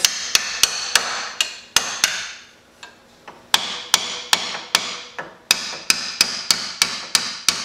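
Ball-peen hammer tapping a steel rust-repair plate against a Jeep YJ's rear frame rail: sharp metallic strikes about three a second, each with a short ring, pausing for about a second and a half partway through. The plate is being driven up so it sits flush with the bottom of the frame.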